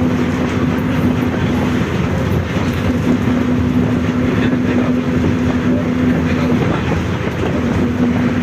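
Rear differential of a Volkswagen 17-230 OD bus whining loudly at one steady pitch over the rumble of engine and road. The whine drops out briefly about two seconds in and again near the end, then returns.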